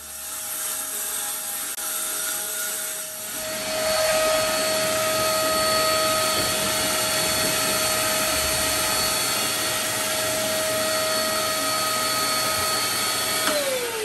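An electric motor running at a steady, high speed with a constant whine, then switched off near the end and winding down, its pitch falling.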